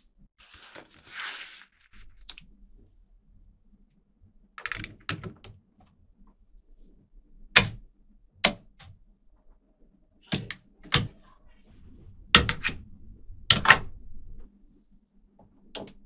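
Small magnetic balls clicking as blocks of them are pressed and snapped into place: about ten sharp, separate clicks, mostly in the second half, with softer rustling as the balls slide and shift near the start and about a third of the way in.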